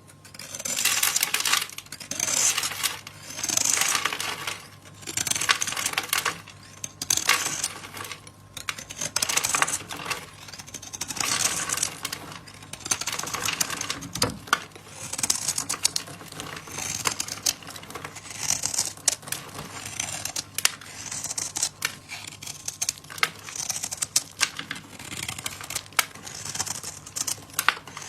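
A knife carving into a bar of soap: repeated crisp, crackling scraping strokes, roughly one every second or so, each with fine clicks as the soap flakes off.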